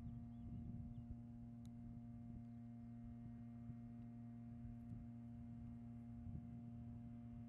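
Faint steady hum holding one low pitch, over a light low rumble of wind.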